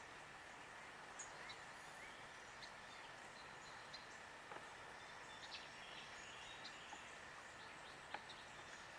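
Quiet outdoor ambience with scattered short, high bird chirps over a steady faint hiss and a faint steady high tone.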